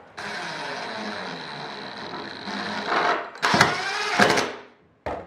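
Cordless DeWalt impact driver driving a screw through a wood hold-down block into a work table. The motor runs steadily for about two and a half seconds, then comes in three or four short, louder bursts as the screw is driven home.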